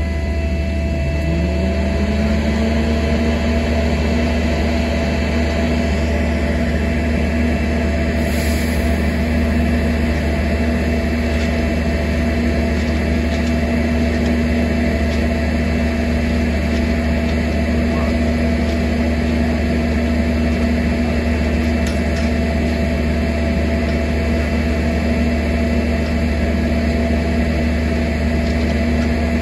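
Engine of the rail welding equipment running steadily. About a second in it speeds up, its pitch rising for a couple of seconds, then it holds at the higher speed. A short hiss is heard near the middle.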